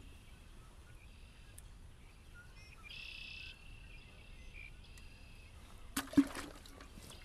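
Birds singing over a quiet outdoor background, with one clearer call about three seconds in. One short, loud knock comes about six seconds in.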